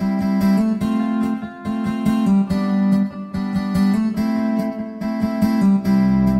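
Music led by strummed acoustic guitar, with a steady sustained low note beneath the strums.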